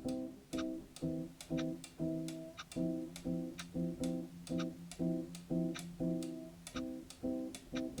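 Cheerful, repetitive plucked-string music with a short note pattern about twice a second, and soft clock ticking running through it.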